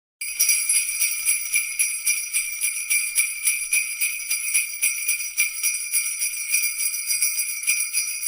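Jingle bells shaken in a quick, steady rhythm, a bright continuous jingling that starts abruptly just after the start.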